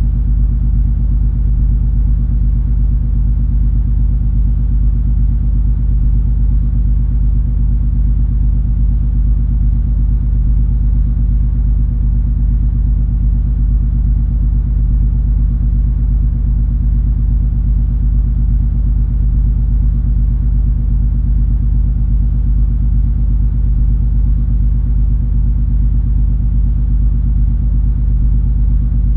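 Steady low drone of the MS Color Fantasy cruise ferry's engines under way: a deep, unchanging hum with several steady low tones and little high sound.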